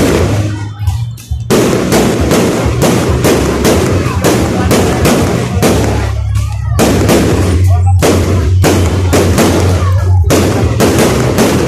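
Fireworks going off in rapid, near-continuous loud bangs and cracks, several a second, with brief lulls about a second in and again around six seconds in.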